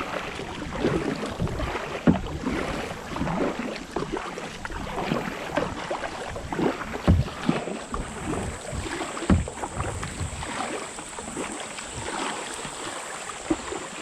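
Kayak paddling down a shallow, rippling creek: water splashing and rushing around the hull and paddle, with a few sharp low thumps.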